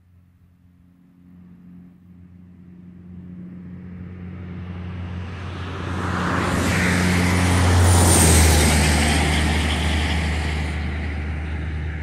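A motor vehicle passing on the road, its engine hum and tyre noise growing steadily, loudest about eight seconds in, then fading a little.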